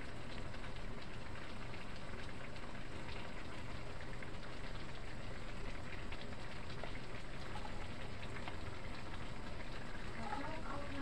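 Mixed vegetables simmering in sauce in a nonstick pan, a steady fine crackling and sizzling.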